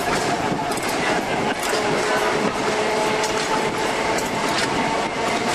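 Electric tram running along its track, with a steady whine from its running gear and occasional clicks from the wheels.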